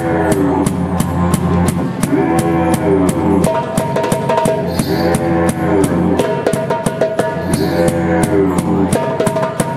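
Didgeridoo droning low, its tone swept into an arching 'wah' about every two seconds, over a steady beat of drum hits several times a second.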